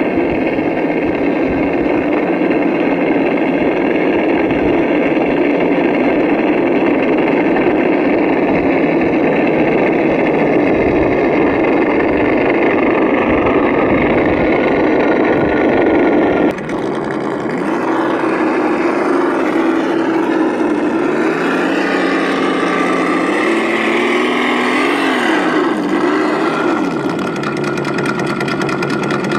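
Radio-controlled scale 4x4 trucks running through muddy water, with a steady engine-like drone. After a sudden change a little past halfway, the pitch rises and falls with the throttle.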